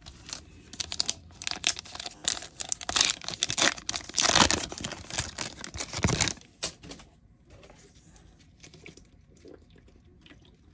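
Foil trading-card booster pack being torn open and crinkled as the cards are pulled out, loudest about four to six seconds in. After that only faint clicks of the cards being handled.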